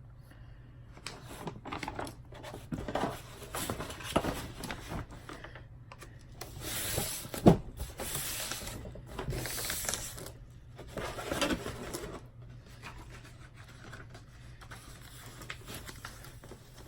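Rustling and rubbing as a diamond painting canvas is handled and smoothed open, in irregular bursts, with one sharp knock about seven and a half seconds in.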